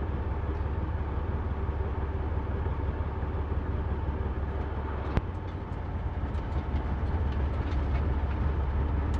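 Steady low rumble of a parked semi truck's diesel engine idling, heard from the cab, with one sharp click about five seconds in.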